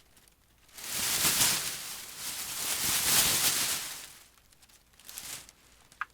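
Foley rustle of tree leaves, made by shaking open-reel tape in a bag: two swelling rushes of rustling about a second in, then a smaller one near the end.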